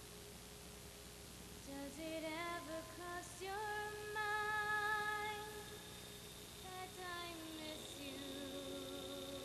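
A female soloist singing into a handheld microphone, coming in about two seconds in with held notes that waver in pitch, pausing briefly, then singing on. A thin steady high tone sounds under the later part.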